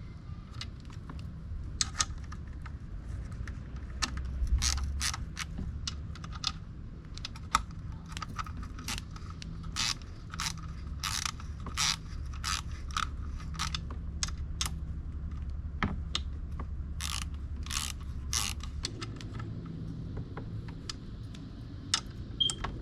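Ratchet wrench clicking in short irregular runs as the water pump housing bolts are tightened down, over a steady low hum.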